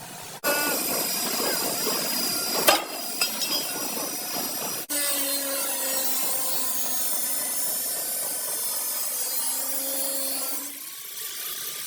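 Rasping, rubbing hand work on a car body, with a sharp knock about two and a half seconds in. The sound breaks off suddenly twice and changes character each time.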